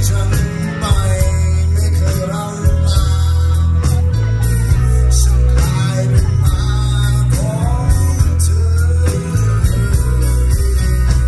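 Live band playing a song with a male singer's amplified voice over electric guitar, a heavy bass line and drums.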